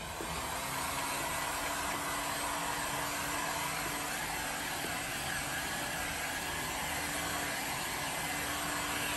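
Electric heat gun running steadily, a constant rush of blown air with a low motor hum, as it dries freshly applied wood stain.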